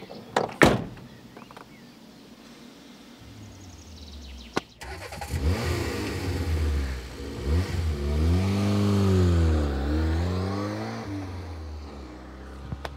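A car door slams shut about half a second in; then a car engine runs up and the car drives away, its pitch rising and then falling before it fades near the end.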